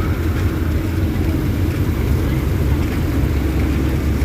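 Steady low rumble of a moving road vehicle: engine and road noise with no distinct events.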